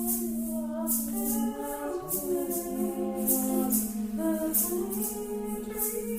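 Several voices sing long held notes that overlap in harmony and slide slowly from pitch to pitch, over a steady shaker pulse.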